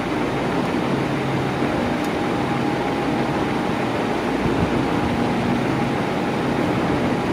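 Electric fan running steadily: an even rush of air from the blades with a faint motor hum.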